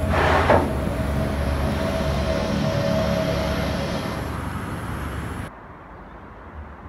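A low, steady rumbling drone with a held mid-pitched hum over it, after a brief whooshing sweep near the start; it drops away abruptly about five and a half seconds in, leaving a faint hiss.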